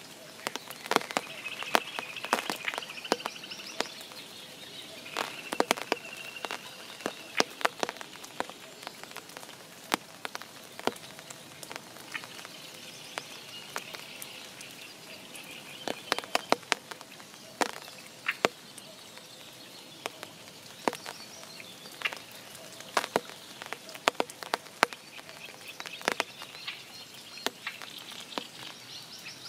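Spring rain over a forest pond: irregular, sharp drips and patters of raindrops, some loud and close, over a soft steady hiss of rain.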